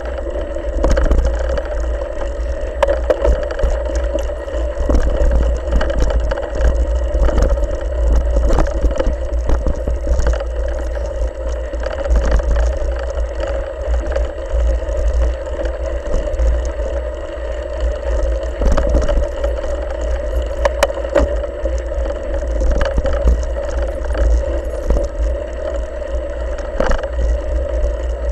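Mountain bike ridden fast along a bumpy dirt trail, heard from a camera mounted on the bike: a steady low rumble with frequent rattles and knocks as the wheels jolt over roots and bumps.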